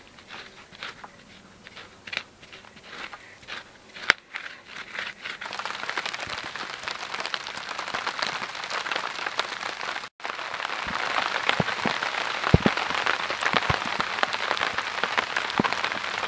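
A stick scraping and chopping into loose soil, with scattered clicks. From about five seconds in this gives way to a dense, steady crackling patter of rain on a tarp.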